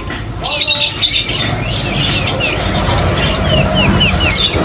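Several birds chirping together in a busy mix of calls, with one bird repeating short falling notes over and over.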